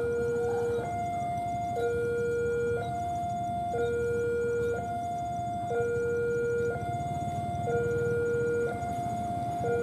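Railway level-crossing warning alarm sounding its two-tone electronic signal, a lower and a higher note alternating about once a second, warning of an approaching train. A steady low rumble runs underneath.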